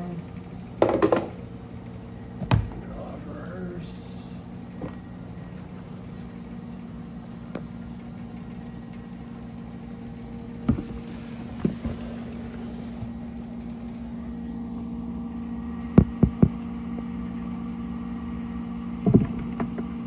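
Knocks and clatters of plastic reptile tubs and lids being handled, sharpest about two-thirds of the way through, over a steady machine hum.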